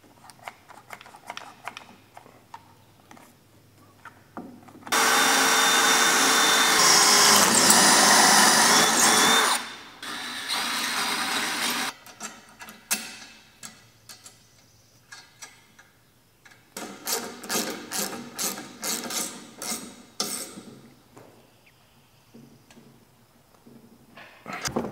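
A power drill runs loudly for about four and a half seconds, then briefly again more quietly, on the bolts of a tractor canopy's steel mounting bracket. Later a socket ratchet wrench clicks through a run of quick strokes, among small metal clinks of nuts, washers and bolts being handled.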